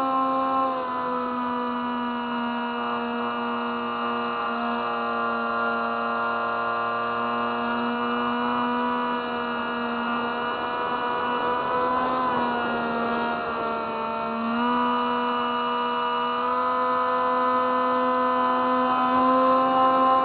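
Electric motor and propeller of a Spy Hawk FPV model plane in flight, a steady whine that sags slightly in pitch about twelve seconds in and steps back up a couple of seconds later as the throttle changes.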